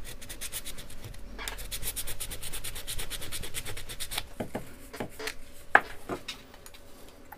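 An aluminium capacitor can being scraped by hand with a tool in quick, regular strokes for about four seconds, taking off its clear plastic coating down to bare metal so it can be tinned; after that come a few scattered clicks and knocks, one sharp one about six seconds in.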